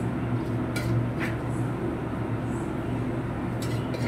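Steady low mechanical hum of kitchen equipment, with a few faint clicks of utensils on a platter.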